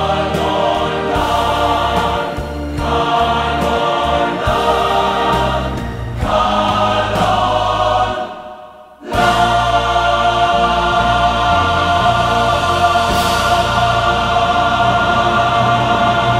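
Music with a choir singing. It fades away briefly a little past halfway, then comes back in.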